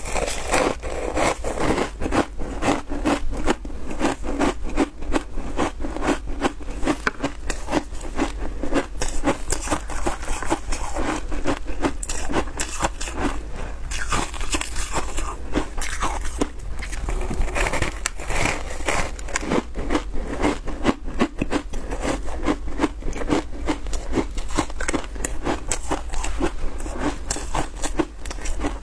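Close-miked biting and chewing of compressed shaved ice dusted with milk powder: a dense, steady run of crisp crunches and crackles, several a second.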